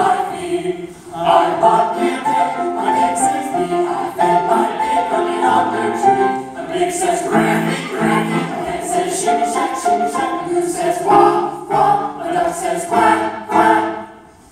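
Mixed choir singing a lively folk-song arrangement with grand piano accompaniment, in short phrases with a brief break about a second in and another near the end.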